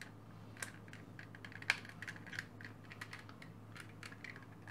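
Small plastic clicks and taps as the housing and gears of a hand-squeeze dynamo torch are handled and pried apart, with a sharper click about one and a half seconds in.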